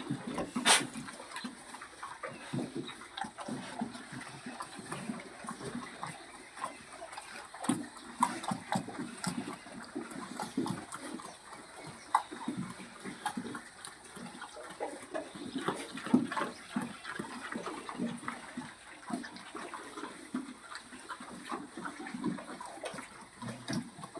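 Pigs grunting, with water splashing and irregular knocks and clicks throughout.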